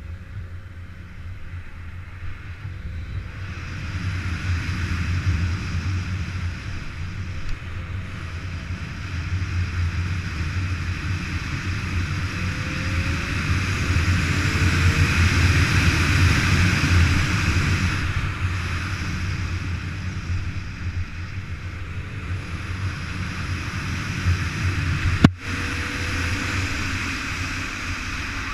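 Motorcycle running along at speed: a steady low engine drone under a broad rushing noise, swelling toward the middle and easing off later, with a single sharp click near the end.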